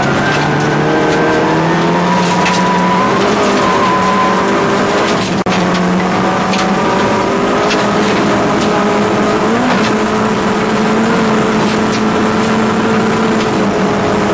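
Old Opel rally car's engine heard from inside the cabin, running hard at high revs under load on a gravel stage, its pitch climbing slowly with a short lift off the throttle about five seconds in. Scattered sharp ticks of gravel strike the car.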